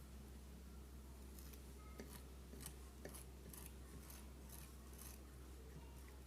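Faint, repeated short scrapes, about two a second, of a blade scraping the enamel insulation off the end of a ceiling fan's aluminium winding wire to bare it for a connection.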